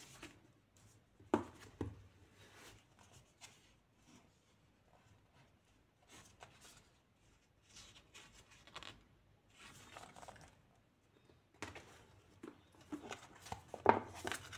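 Paperback book being handled and opened: the cover and pages turned and flexed, with irregular soft paper rustles and a couple of sharper clicks and taps, the loudest about a second in and near the end.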